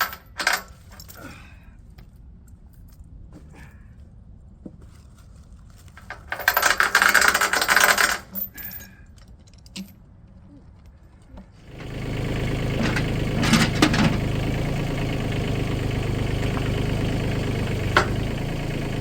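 Steel chain clinking and rattling, with a louder rattle lasting about two seconds midway. About twelve seconds in, an engine starts and settles into a steady idle.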